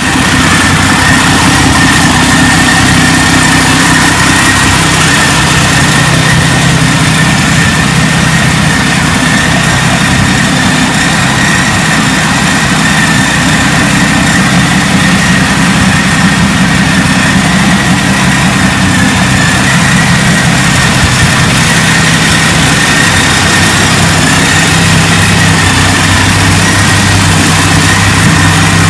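Supercharged 750 cubic inch Ranger V-12 aircraft engine idling steadily, with a steady high whine over the engine note.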